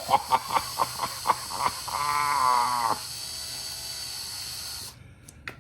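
Power drill turning a left-handed drill bit in a broken bolt to back it out, run slowly in short pulses of the trigger, then in a longer run whose pitch sags under load, stopping about five seconds in. A small click follows near the end.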